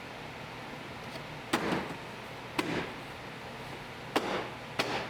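Four thumps, in two pairs, of a hand striking a 2005 Volkswagen Jetta's interior door panel to pop its edge clips back into the door.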